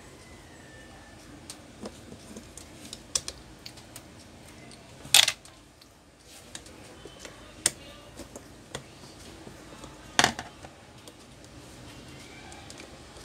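Long screwdriver working the screws out of an electric fan's motor mount: scattered small clicks of metal on metal and plastic, with two louder knocks about five and ten seconds in.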